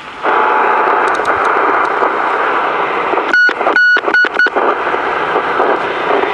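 CB radio receiver static: a steady hiss from the set's speaker with the squelch open on an empty channel, switching on abruptly. About three seconds in, the hiss cuts out four times in quick succession, each time replaced by a short high whistle, as the handheld CB next to it is keyed.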